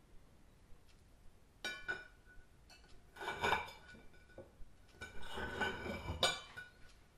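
Kitchen knife clinking and scraping against a china plate as a vanilla pod is slit lengthwise. There is a sharp clink about two seconds in, then two longer scraping passes with a ringing clink from the plate, the last ending in a clink a little after six seconds.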